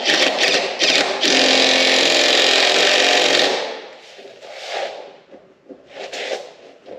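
Cordless impact drill driving a seat bolt into an aluminium dirt-bike subframe: a few short bursts, then a steady run of about two seconds, then quieter short bursts. The bolt is being forced home because it is not lining up with its threads.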